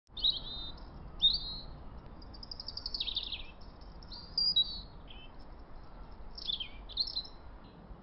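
Birdsong: a series of short, high chirps and whistled trills, several falling in pitch, in phrases about a second apart.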